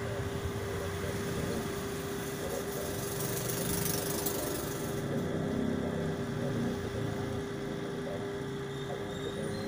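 A small engine or motor running steadily, with a constant humming tone.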